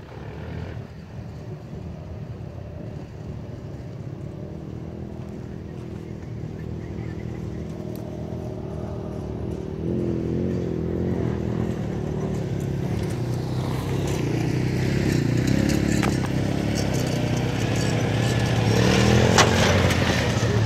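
Citroën 2CV's air-cooled flat-twin engine running as the car drives over dirt, growing louder as it comes closer. Near the end the revs rise as it pulls past close by, with a few sharp clicks.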